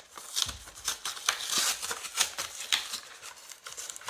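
A cardboard trading-card collection box being opened by hand: a quick string of clicks, scrapes and rustling of cardboard and packaging, busiest in the first couple of seconds.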